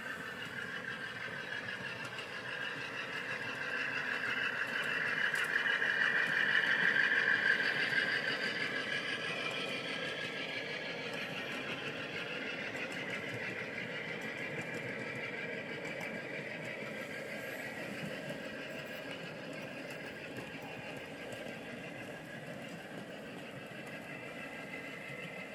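Sound decoder in a G-scale Aristo-Craft Dash-9 model locomotive playing a diesel engine running, through the model's small speaker, growing louder as the locomotive passes close, loudest about six to eight seconds in, then slowly fading. Under it, a steady rumble of the grain hopper cars rolling on the track.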